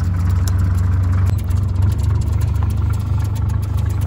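Fishing boat's engine running steadily, a low even rumble with faint clicks and clatter over it.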